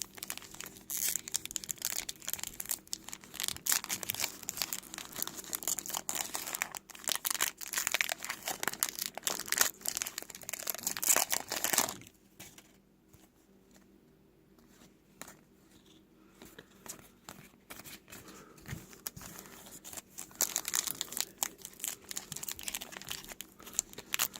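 Trading-card pack wrappers being torn open and crinkled, with cards rustling as they are handled. The rustling stops for several seconds about halfway through and resumes near the end.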